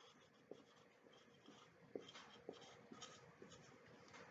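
Marker pen writing a word on a whiteboard: faint scratchy strokes with a few light taps of the tip against the board.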